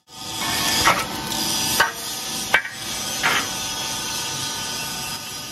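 Solar panel frame removing machine running steadily while it strips the aluminium frame from a panel, with four sharp metal knocks and scrapes about a second apart in the first few seconds.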